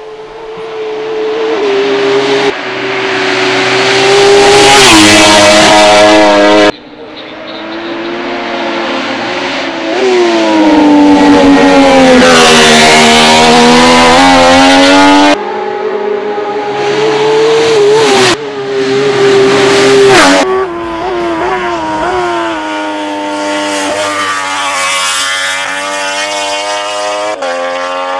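MV Agusta F3 675 racing motorcycle's inline three-cylinder engine at race revs, passing close by several times, the engine note climbing and dropping as it comes through and changes gear. The sound cuts off abruptly between one pass and the next.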